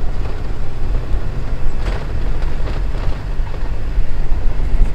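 Car crawling over a rough unpaved road: a steady low rumble of engine and tyres, with a few jolts about two seconds in.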